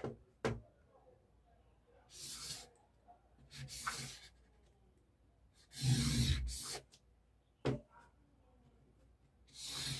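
Marker pen drawing lines on pattern paper against a plastic ruler: a handful of short scratchy strokes, each under a second, with a couple of sharp clicks. About six seconds in there is a heavier rustle and knock on the table.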